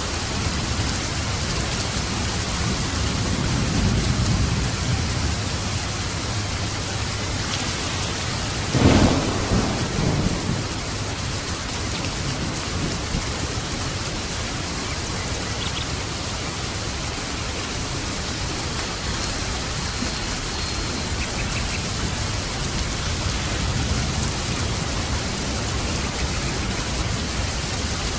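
Steady heavy rain with thunder: a low rumble swells a few seconds in, and a sharp thunderclap about nine seconds in rolls away over the next couple of seconds.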